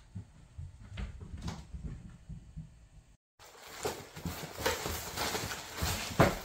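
Two cats wrestling inside a cardboard box: claws scratching and bodies scuffing and knocking against the cardboard, starting about halfway through and growing louder. Before that there are only a few faint knocks.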